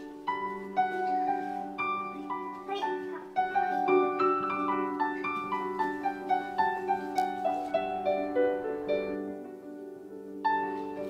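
Soft background music: a melody of short plucked notes over held low chords.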